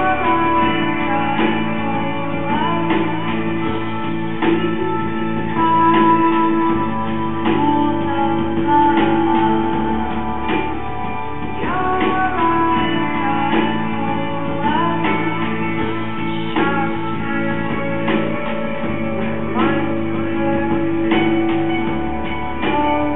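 Music: plucked notes over long held tones.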